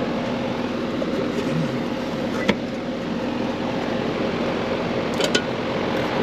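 Outdoor AC condenser fan motor running steadily with a hum, alone: the compressor is not running because a wire burnt off at the contactor has cut one leg of its power. A few light clicks from handling the unit, one about two and a half seconds in and a couple near the end.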